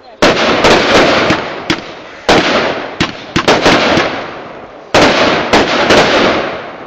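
Fireworks going off: a rapid series of loud bangs in irregular clusters, about fourteen in all, as shots launch and burst overhead, each bang trailing off before the next.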